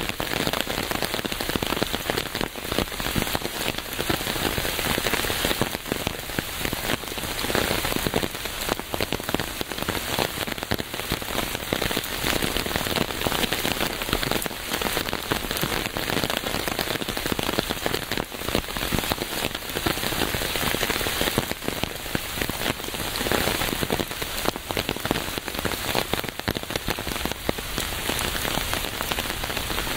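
Steady rain falling on a surface, a dense patter of many drops with no letup.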